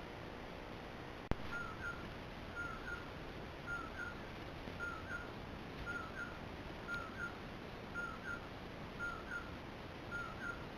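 A sharp click about a second in, then a male common poorwill singing its courtship song: a short two-part 'poorwillip' call repeated about once a second, nine times.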